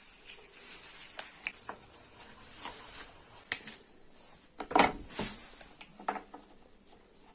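Close handling sounds of a small jar being wrapped in a thin plastic bag and tied with string: light crinkling and small scattered clicks, with a couple of sharper clicks a little under five seconds in.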